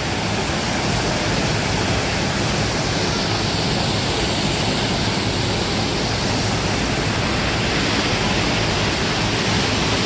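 Waterfall pouring off a sandstone ledge into its plunge pool, heard close: a loud, steady rush of falling water.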